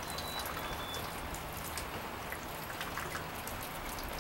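Light rain pattering steadily, with many small scattered drips and ticks. A faint thin high whistle sounds twice in the first second.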